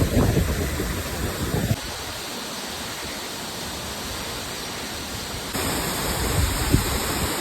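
Steady rushing of a waterfall, with wind buffeting the microphone for the first second or two.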